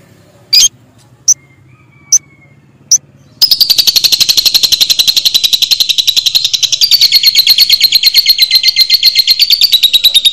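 Lovebird calling: a few short, sharp, high chirps, then about three and a half seconds in a long, fast, even chattering trill (the 'ngekek') that carries on without a break.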